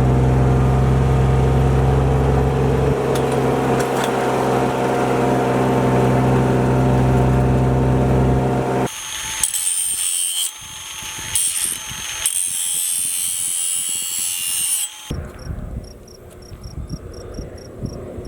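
Tractor engine running steadily, then cutting off abruptly about nine seconds in. A high hissing buzz follows, then insects chirping in a regular rhythm of about four chirps a second.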